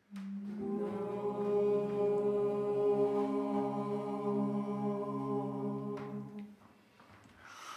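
A group of voices singing one long held chord together, several steady pitches sounding at once, with a lower voice joining about half a second in. They stop together after about six and a half seconds.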